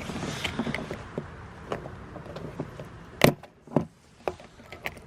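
Hands working a suitcase latch and handle: scattered light clicks and rustling, with two sharper clicks about half a second apart a little past three seconds in.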